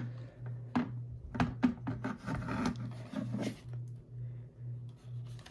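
Handling noise from a plastic weather radio being moved and set down on a hard shelf: a few clicks and knocks, with scratchy rubbing in the middle. Under it runs a low hum that pulses about twice a second.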